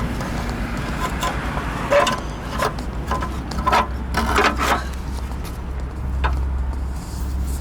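Irregular clicks and knocks of a part being handled and fitted by hand on a vehicle, over a steady low rumble.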